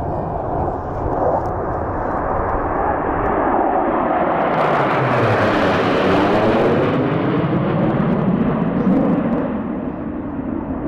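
A formation of military jet fighters flying over, the jet engine noise swelling to its loudest about five to seven seconds in as they pass overhead, then easing off.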